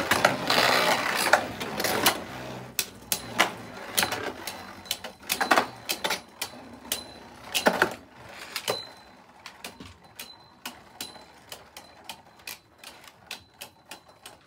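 Two Beyblade spinning tops whirring and clattering in a plastic stadium dish, striking each other with sharp clicks. The clashing is loud and dense at first, then eases into lighter, quieter clicks every fraction of a second as they keep spinning.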